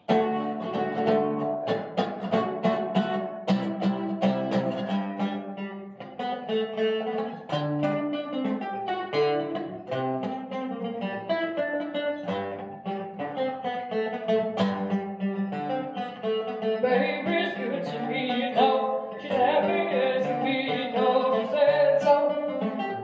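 Acoustic guitar strummed through a small amplifier, playing an upbeat rock-and-roll song; the playing gets fuller and brighter for the last few seconds.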